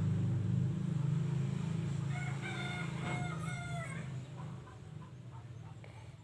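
A sleeping person snoring, a low rattling drone that is loudest at first and fades after about four seconds. Partway through, a rooster crows once, a call about two seconds long.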